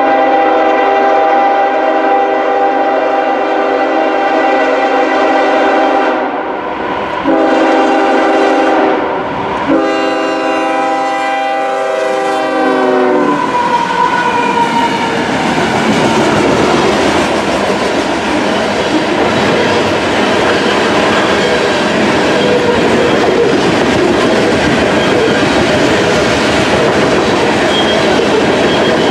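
A diesel freight locomotive's air horn sounds three long blasts, and its chord drops in pitch as the locomotive passes. The train then rolls by steadily, with locomotives running and loaded covered hopper cars clacking and rumbling over the rails.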